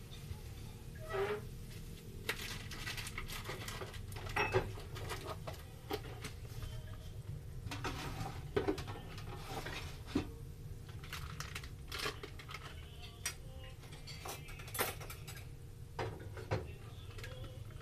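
Kitchen clatter: irregular clinks and knocks of dishes, cups and cooking utensils, including a spatula working in a frying pan, over a steady low hum.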